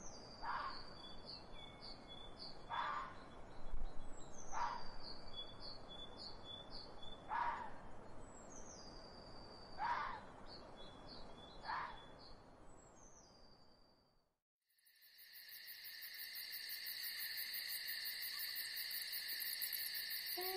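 Birdsong: a bird repeats a short phrase every few seconds, opening with a falling whistle and running into a string of quick high notes, with separate short lower calls in between. It fades out about fourteen seconds in. After a moment of silence a steady high drone of several held tones begins and carries on.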